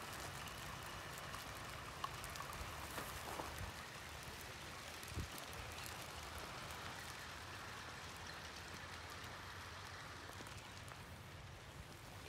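Faint, steady outdoor background hiss with a few light ticks scattered through it.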